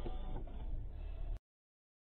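Background music that cuts off abruptly a little over halfway through, followed by dead silence.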